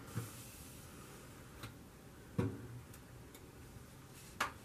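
A few scattered sharp clicks and knocks, four in all, the loudest about halfway, from plastic and metal parts being worked inside a vintage upright freezer's cabinet as a retaining clip is pried loose.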